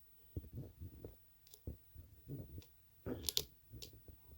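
Lock pick working the pin stack of a pin-tumbler challenge lock under tension: faint, irregular clicks and scrapes, with a louder cluster about three seconds in, as the pick lifts pin 3, which gives all kinds of clicking.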